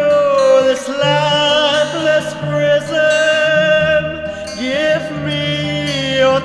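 Indie rock ballad: a singing voice holds long, wavering notes in a few phrases over sustained band backing.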